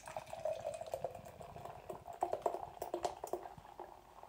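Beer poured from a can into a tulip glass: a steady stream splashing and foaming, with a hollow tone and many small scattered clicks, fading near the end.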